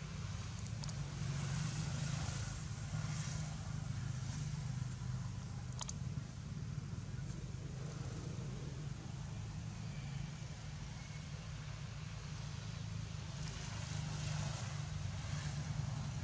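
Steady low rumble with faint rustling now and then and a single sharp click about six seconds in.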